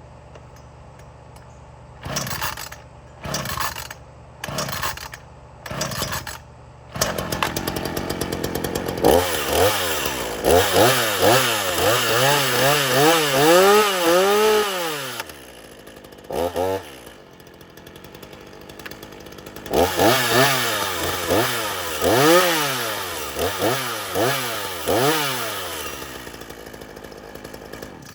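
Two-stroke gas chainsaw pull-started with about five quick pulls, catching on the last, then blipped up and down through the revs several times with idling in between, and shut off near the end.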